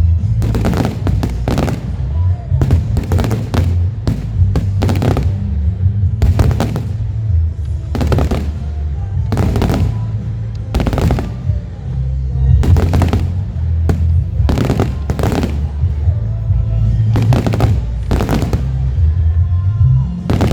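Aerial fireworks shells bursting in quick, irregular succession, sharp bangs about once a second, over a continuous deep rumble.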